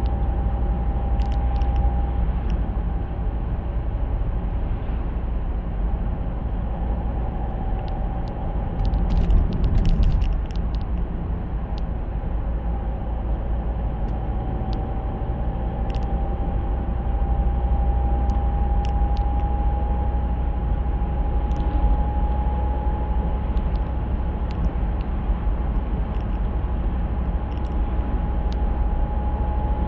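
Car interior at road speed: a steady hum from the Aisin TF-80SC six-speed automatic transaxle, heard as one clear tone that slowly rises in pitch over a low road and engine rumble, with a brief louder rumble about nine seconds in. The owner takes the hum for a fault in the gearbox or differential.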